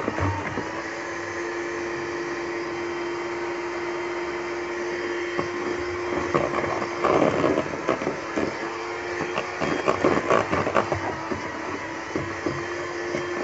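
Electric hand mixer running steadily, its beaters whisking eggs and semolina in a bowl. Irregular clicks and rattles come through between about seven and eleven seconds in.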